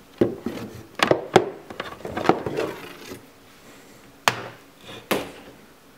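Sharp knocks and handling noise from cables and a cardboard box being moved about, about six distinct knocks with rustling between.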